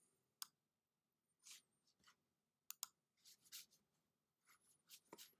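Near silence with a few faint computer-mouse clicks and some soft rustling.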